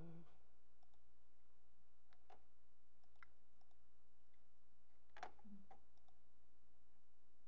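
Quiet room with a few scattered, faint clicks and knocks, the loudest about five seconds in.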